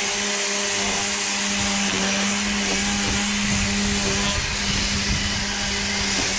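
DeWalt 20V MAX brushless cordless string trimmer running at a steady speed: an even electric-motor whine over a constant hiss.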